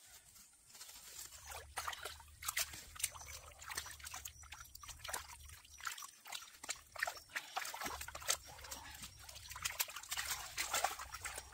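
Hands digging into a wet mud bank and scooping shallow muddy water, with irregular splashes, trickles and wet squelches.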